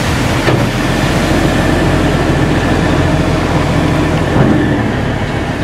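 Heavy dump truck's diesel engine running steadily while its raised bed tips out a load of sand.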